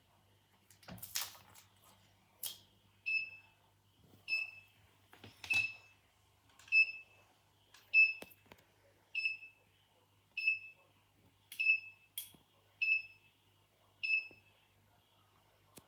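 Alarm system's buzzer beeping at one steady pitch, about once every 1.2 seconds, starting about three seconds in; a few clicks and knocks come before and among the beeps.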